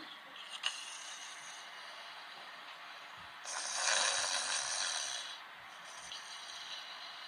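A man snoring: one long, noisy snoring breath lasting about two seconds, starting about halfway through, with quieter breathing noise around it.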